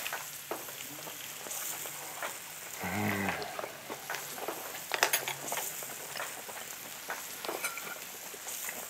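Marinated beef ribs sizzling on a hot iron plate, with chopsticks and dishes clicking and tapping, most densely about five seconds in. A short hummed voice comes about three seconds in.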